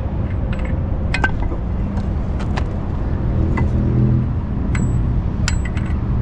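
Several sharp metallic clinks, some ringing briefly, as a steel socket wrench is fitted to an outboard's propeller nut and knocks against the propeller and shaft, over a steady low rumble.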